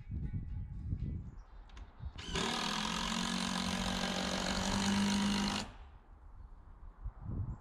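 A power tool runs steadily at one pitch for about three seconds, starting and cutting off abruptly. Low knocks and rumbling come before and after it.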